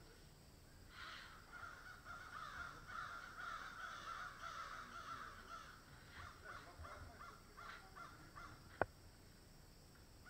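A crow cawing faintly: a dense run of calls starting about a second in, then a few separate caws. Near the end there is one sharp click, the loudest sound.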